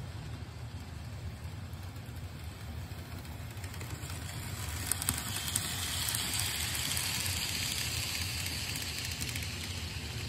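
N scale model trains running on the layout: wheels on the rails and the locomotive motor make a steady low rumble. From about five seconds in this grows into a louder whirring hiss as a steam locomotive and its cars run past close by.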